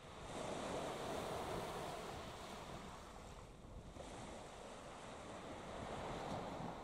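Small waves washing onto the shore, swelling about half a second in and again near the end, with wind on the microphone.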